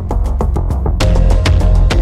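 Background music with a heavy, steady beat and deep bass, growing fuller about a second in.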